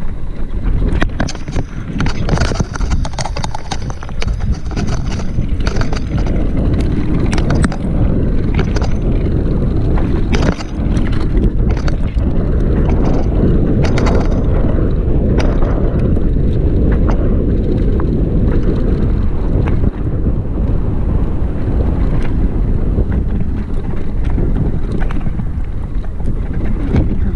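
Wind buffeting the microphone of a camera on a mountain bike speeding downhill, with the bike clicking and rattling over bumps on a dirt trail.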